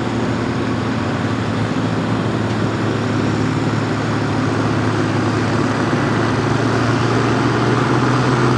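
International Harvester farm tractor's diesel engine running hard under full load while pulling a weight-transfer sled: a loud, steady drone whose pitch holds level, growing a little louder toward the end.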